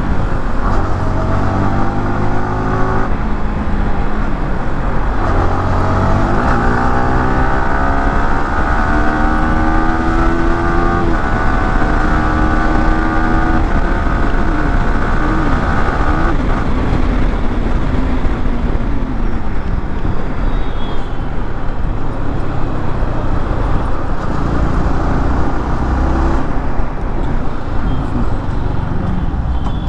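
Yamaha R15M's single-cylinder engine pulling hard through the gears, its pitch climbing and then dropping at each upshift several times. Later it gives way to a steadier rushing noise with little clear engine tone.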